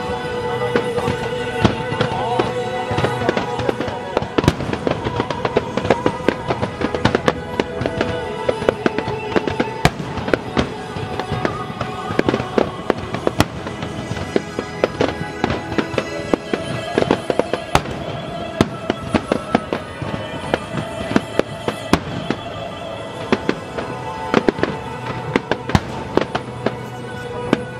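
A fireworks display: aerial shells bursting and crackling, with many sharp bangs throughout, over music with held tones.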